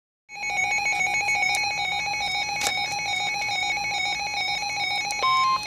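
Electronic emergency-alert tones of a weather radio warning broadcast: a fast-fluttering electronic tone for about five seconds, then a short steady beep near the end.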